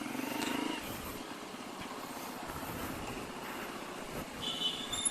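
Small motorcycle engine running steadily, briefly louder for a moment about half a second in. A short high-pitched squeal comes near the end.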